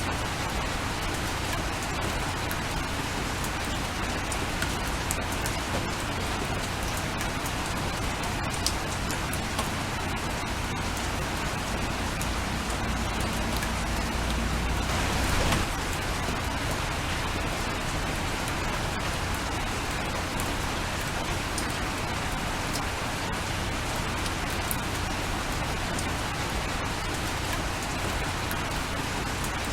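Steady rain falling, with individual drops ticking sharply here and there. About halfway through, a low rumble swells for a few seconds and stops suddenly.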